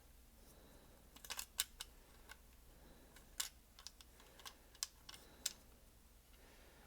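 Light, scattered clicks and taps of small plastic controller parts being handled and fitted, about ten irregular clicks over several seconds.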